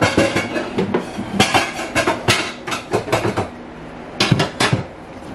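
Pots and a pot lid clattering on the stove: a quick run of clinks and knocks for about three and a half seconds, then a few more knocks a little later.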